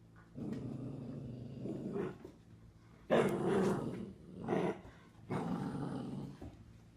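A dog growling in a run of rough growls, some drawn out for a second or two, the loudest starting about three seconds in.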